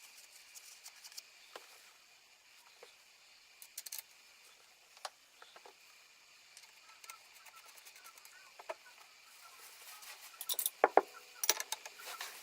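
Scattered small metallic clicks and taps of a washer and nylock nut being handled and fitted onto the end of a swing arm bolt, with a quick run of louder clicks near the end.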